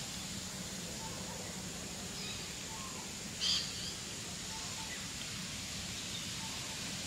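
Outdoor woodland ambience: a steady, distant jet-like roar from the hospital nearby, breeze in the grass, and faint scattered bird notes. One short, sharp bird call stands out about halfway through.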